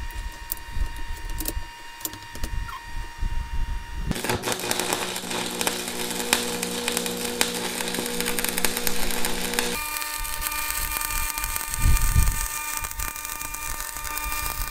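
Stick (arc) welding with a 1/8-inch 7018AC rod at 150 amps: from about four seconds in, the arc crackles and hisses steadily over a steady electrical hum.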